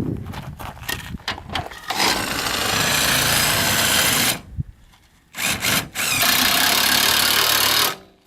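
Cordless impact wrench running in two long spells with a short pause between, preceded by a few handling clicks: it is driving the fifth-wheel trailer's rear stabilizer jacks down to level the camper.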